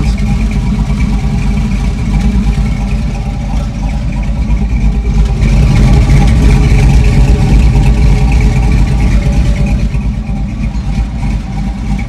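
Cammed 6.0 LS V8 in a swapped Chevy Colorado idling through an exhaust with turndown tips. It gets louder for several seconds in the middle, when the microphone comes down near the exhaust by the rear wheel.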